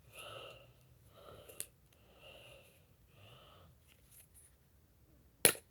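A person's quiet, breathy breaths, one about every second, with a sharp click near the end.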